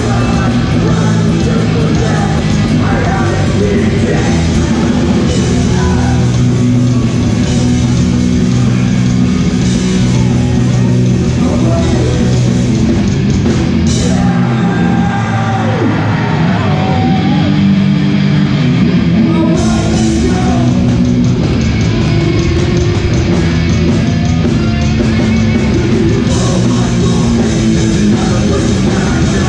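Hardcore punk band playing live with distorted guitars, bass, drums and shouted vocals. The low end drops back for several seconds midway, then the full band comes back in.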